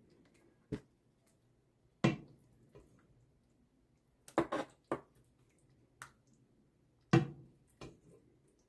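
A spoon or spatula tapping and scraping in a baking dish while ground beef is spread over a layer of vegetables: about seven short, sharp taps a second or so apart, with quiet between them.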